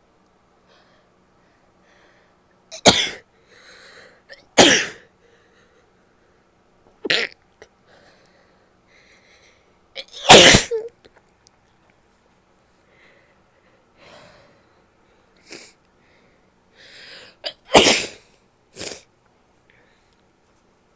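A person sneezing repeatedly: about seven sharp sneezes spread through the stretch, several of them preceded by quieter breathy inhales. The loudest and longest sneeze comes about ten seconds in.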